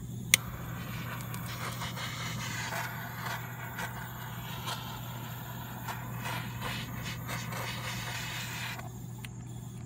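A small handheld butane blowtorch clicks as it lights, then its flame hisses steadily for about eight and a half seconds before cutting off near the end.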